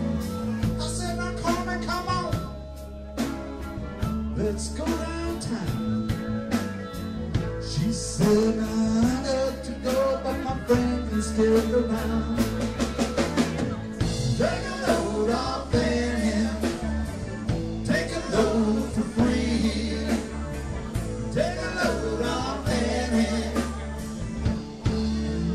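Live rock band music with singing over guitar and bass and a steady drum beat.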